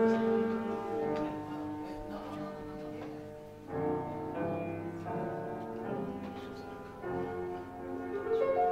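Keyboard music in slow held chords, changing about every three to four seconds.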